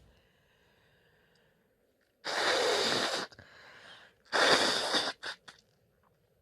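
Two hard nose blows, each a loud burst of air lasting about a second, the second followed by two short extra puffs. Faint nasal breathing comes before and between them.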